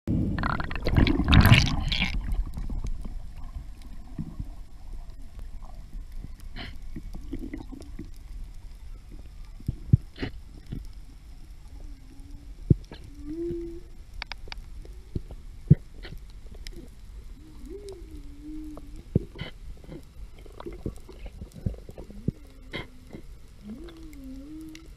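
Underwater sound picked up by a spearfisher's camera: a loud rush of water and bubbles in the first two seconds, then a low murmur of water with scattered sharp clicks and a few short wavering hums.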